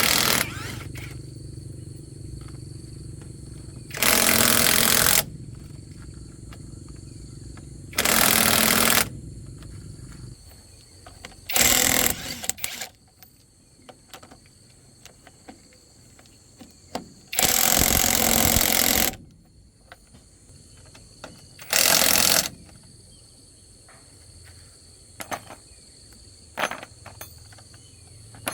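A hammering power tool run in six short bursts of about a second each, with small clinks between them, while working on a rusted wheel. A low steady hum sits under the first bursts and stops about ten seconds in.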